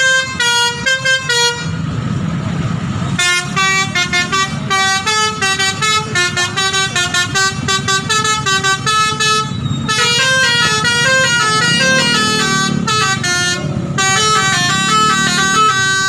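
Bus telolet basuri musical horn playing a fast tune of stepping notes, breaking off for about a second and a half near the start, then running on almost without pause in the second half, over a low rumble.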